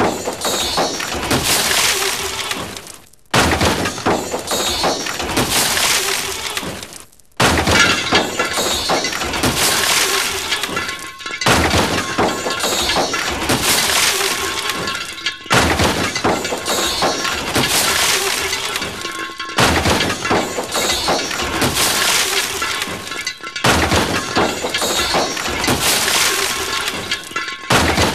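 Sound collage of breaking and crunching glass sampled in a car scrapyard, looped so that a dense clattering passage restarts abruptly about every four seconds.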